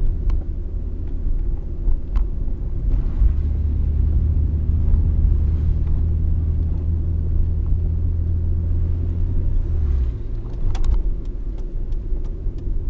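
Car interior while driving: a steady low rumble of engine and road noise that eases about ten seconds in, followed by a run of light clicks near the end.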